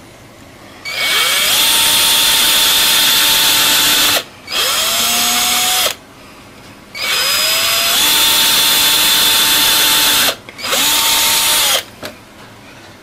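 Hand-held electric drill boring small holes through a plastic jar lid, run in four bursts. Each burst spins up to a steady whine and winds down when the trigger is let go; the first and third bursts are longer than the others.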